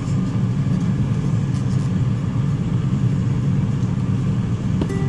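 A steady low rumble, like a motor or fan running, with no clear beat or change.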